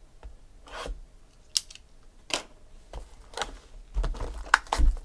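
Foil-wrapped trading card packs being slid out of a cardboard box and handled: a series of short rustling swishes and scrapes with a sharp click, then a quicker cluster of crinkles and clicks near the end.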